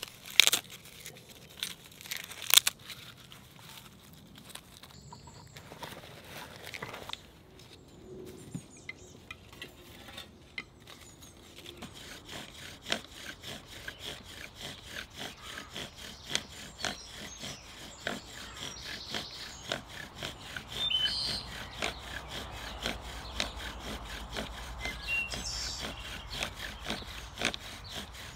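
Bow drill friction fire being worked: a silver birch bow drives a hazel spindle back and forth in a pine hearthboard under a sycamore bearing block, making a fast, regular rubbing stroke that starts about twelve seconds in and keeps on. Before it, a few sharp knocks near the start. Birds chirp faintly in the background.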